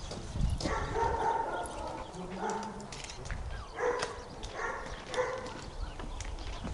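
A Dobermann giving a series of short yips and barks, about five in all, while jumping up at its handler.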